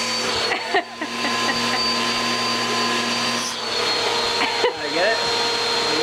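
Vacuum cleaner running steadily with a high whine, its nozzle held against a beard to suck out styrofoam crumbs. The whine's pitch drops slightly about three and a half seconds in.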